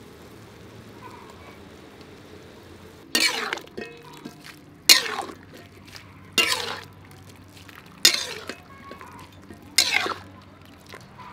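A wire-mesh spider strainer scooping blanched cauliflower and greens out of a metal wok of boiling water: five sharp metal clinks against the pan about every second and a half, each followed by a short splash of water running off.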